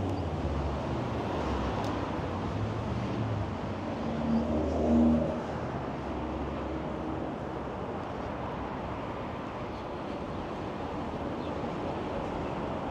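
Street traffic: a vehicle engine hums low through the first five seconds over a steady city noise. A brief louder pitched tone comes about four to five seconds in, then the steady traffic noise carries on.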